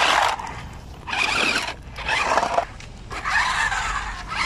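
Small electric motors of a toy RC stunt car whining as its big treaded tyres churn and scatter loose gravel, in about four bursts with short pauses between.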